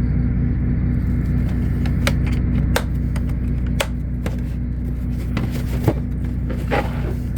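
Steady low machine hum, with scattered sharp clicks and light metal clatter from tool drawers and tools being handled.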